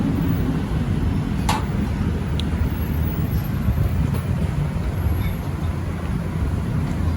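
Steady low rumble of passing road traffic, with one short, sharp click about a second and a half in.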